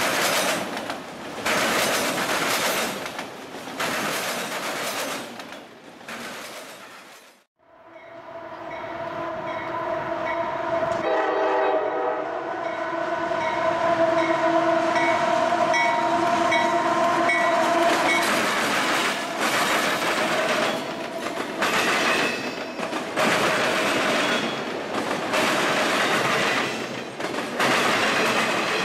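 Freight cars rolling past close by, wheels clacking rhythmically over the rail joints. Then a diesel locomotive's horn sounds several notes at once for about ten seconds, and more autorack cars roll past with the same rhythmic clacking.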